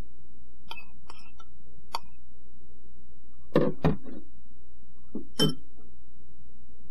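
A spoon clicking and knocking as sauce is spooned onto meat in a dish: a few light clicks, then louder knocks twice around three and a half to four seconds in and once about five and a half seconds in, over a steady low hum.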